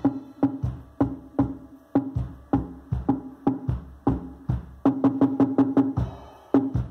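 Music with a steady, heavy drum beat of about two hits a second and strong bass, played loud through a car-audio trio box with a JBL Selenium Tornado subwoofer driven by a Stetsom EX3000 amplifier.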